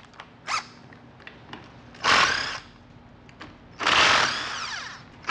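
Cordless impact driver backing out the oil pan bolts of a TH350 automatic transmission in two bursts, about two seconds in and again near four seconds, the second longer and winding down in pitch as it stops.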